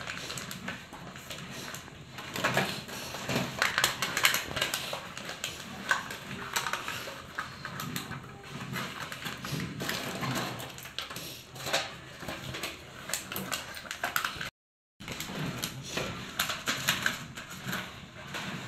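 A long wooden paddle stirring thick, sticky dodol in a large metal pan, with irregular scraping, knocking and clicking against the pan, broken briefly about three-quarters of the way through.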